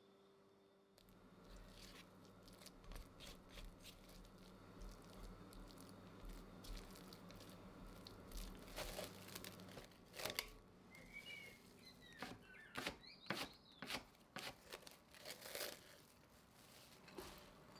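Sticky yeast dough being stirred and folded with a silicone spatula in a glass bowl: a run of faint, wet tearing sounds, busier in the second half.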